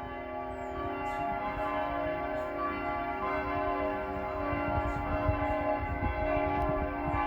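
Church bells ringing continuously, many overlapping tones held and layered. The listener takes it for a different bell rung for a special service.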